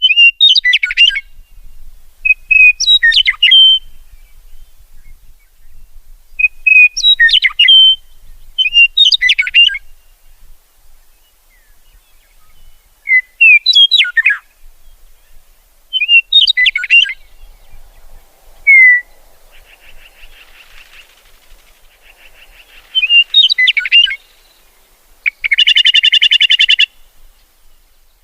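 Songbird singing short chirping phrases, one every two to three seconds, with a loud rapid trill near the end.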